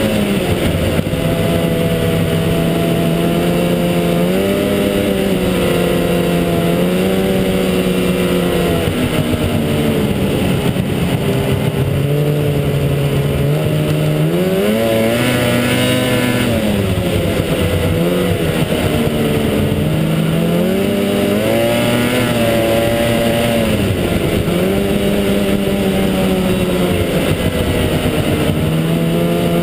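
Snowmobile engine running along the trail, its pitch rising and falling as the throttle is eased and opened again, with a deep drop and climb about halfway through. A steady rushing noise runs underneath.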